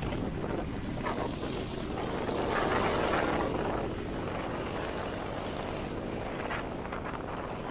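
Motorcycle riding sound: wind rushing over the microphone, with the running engine of a 1974 Triumph Trophy 500 parallel twin underneath. The rush swells for about a second and a half between two and three and a half seconds in.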